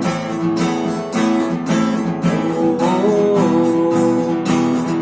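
Acoustic guitar strummed in a steady rhythm, with a held melody line over the chords, in an instrumental break between sung lines.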